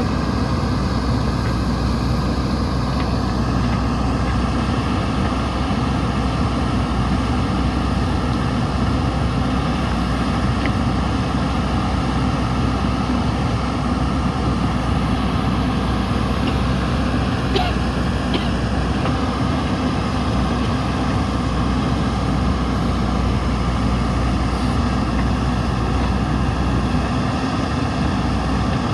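JCB 3DX backhoe loader's diesel engine running steadily, with a few faint clicks a little past halfway.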